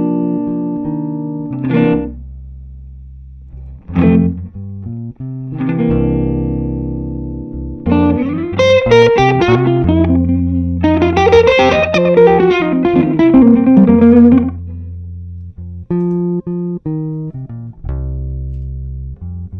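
Electric guitar playing blues: chords struck and left to ring out with pauses between them, then a fast single-note lead run with string bends in the middle, and more chords near the end, over steady low notes.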